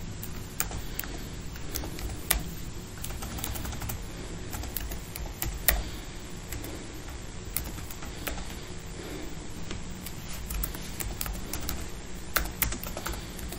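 Typing on a computer keyboard: irregular keystrokes, with a few louder key presses standing out.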